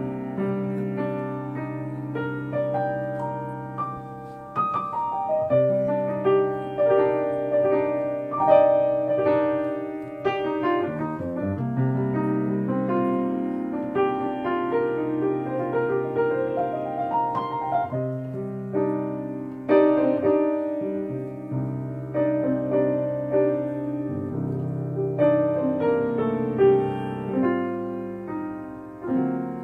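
Solo piano playing a melody over sustained chords, an instrumental passage with no singing.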